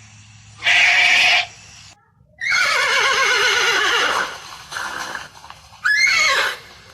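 Horse whinnying: a long quavering whinny falling in pitch, starting about two and a half seconds in, and a shorter rising-then-falling call near the end, after a short loud call about a second in.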